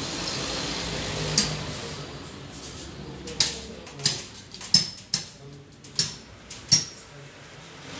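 A hand tapping and knocking on glazed ceramic wall tiles and their edge trim: about seven sharp clicks, unevenly spaced, starting about a second and a half in.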